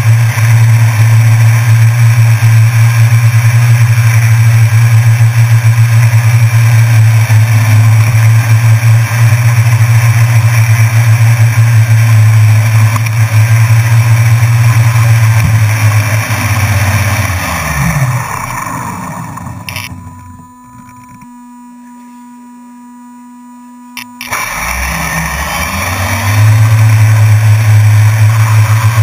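Multirotor drone's motors and propellers whirring steadily at close range. Past the middle they wind down with falling pitch and stop for about four seconds, leaving only a faint electronic hum, then spin back up with rising pitch to the same steady whir.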